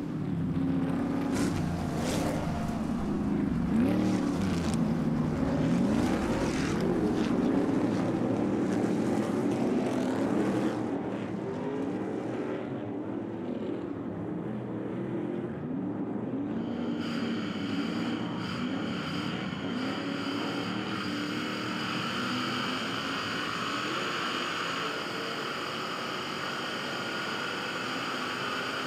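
Stadium Super Truck race engines at racing speed, their pitch rising and falling with throttle and gear changes. About halfway through, the sound turns into a steadier in-car running sound with a constant high whine over the engine.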